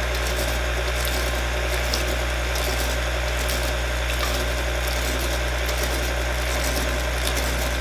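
KitchenAid Classic tilt-head stand mixer running steadily at low speed, its flat beater turning through thin molasses batter.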